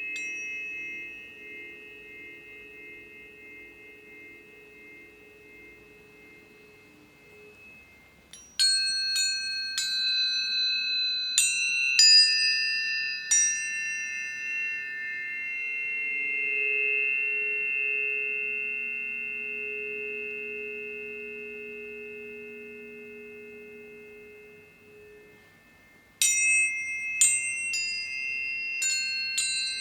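Tuning forks ringing in a sound bath. A held tone fades out, then about eight seconds in several forks are struck in quick succession, each strike a click followed by clear high ringing tones that slowly die away. A second round of strikes comes near the end.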